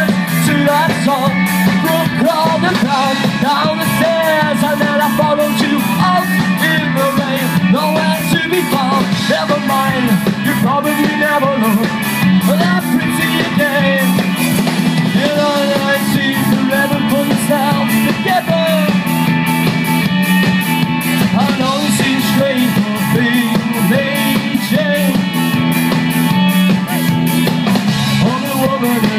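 Live rock band playing through a stage PA, loud and unbroken: electric guitars, bass guitar and drums, with a sung vocal over the top.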